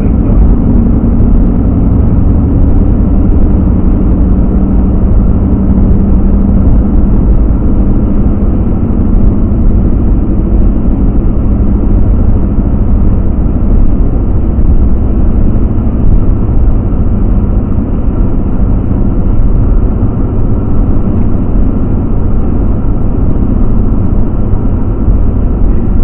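Car driving at road speed, heard from inside the cabin: a steady low rumble of engine and tyre noise.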